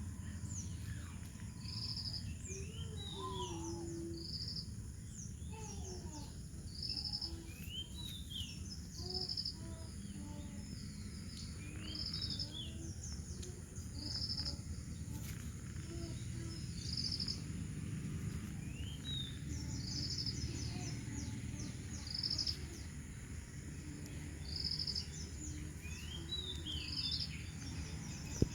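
Outdoor morning birdsong: assorted birds chirping, with one short call repeating about every two seconds, over a steady low background noise.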